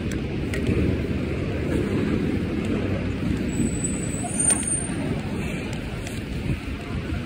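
City street traffic rumble heard while walking on the sidewalk, with a jacket rubbing over the phone's microphone. A thin high squeal sounds briefly about three and a half seconds in.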